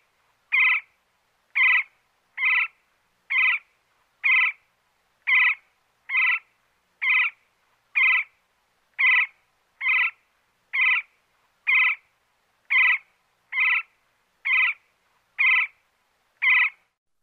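Woodpecker calling: one short call repeated at an even pace just under once a second, about eighteen times, with silence between calls.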